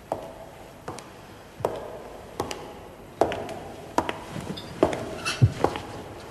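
Slow, even footsteps of hard-soled shoes on a hard floor, about one step every 0.8 seconds, echoing and growing louder as they approach.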